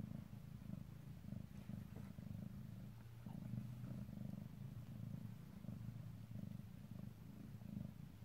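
Domestic cat in labour purring steadily, a faint continuous rumble.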